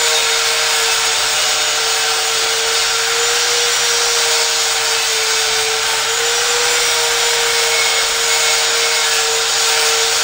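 Die grinder spinning a grinding burr against a cast-iron Oldsmobile 455 engine block, deburring the casting: a steady high whine with dense grinding hiss over it, the pitch wavering slightly as the burr cuts.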